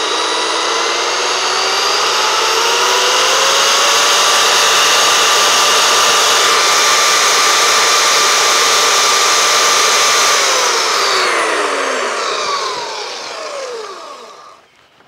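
Vevor portable steel-cutting bandsaw running free with no workpiece, blade and motor whining on a low speed setting. The pitch climbs over the first few seconds and holds steady. About ten seconds in it is switched off, and the pitch falls away as it runs down and stops near the end.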